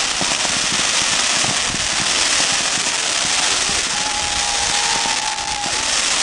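Fireworks display: a dense, continuous crackle of firework bursts. A steady whistle-like tone sounds for under two seconds past the middle.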